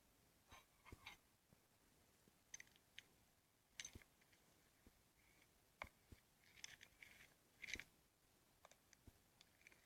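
Faint, scattered clicks and crackles of slime being squeezed and played with, heard from a slime ASMR video.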